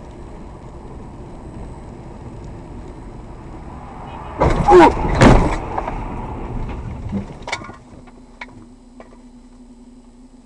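Car crash recorded by a dashcam inside the car: steady road noise, then about four and a half seconds in two loud impacts about half a second apart as the car hits red plastic road barriers and the steel guardrail. The crash dies away with a few knocks, leaving a steady low hum.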